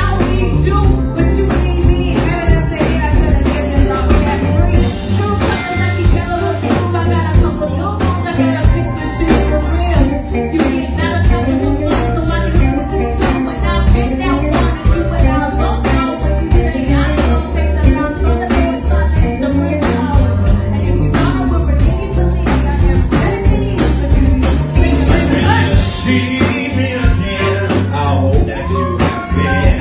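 Live band playing with a singer on microphone: electric guitars and drums keeping a steady beat under the vocals.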